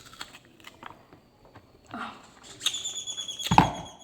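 A bird chirping in the background with repeated high whistled notes, starting about two-thirds of the way in. A single loud thump comes near the end, with a few soft clicks before it.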